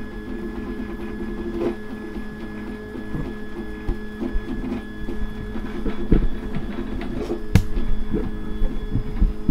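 Prusa i3 kit 3D printer's stepper motors whining in steady tones that keep stepping to new pitches as the print head moves while printing, with a couple of sharp clicks.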